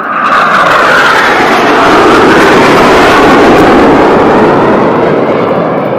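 Low flypast of an NF-5 jet fighter: a loud rushing jet roar that comes in suddenly and then falls in pitch as the aircraft passes.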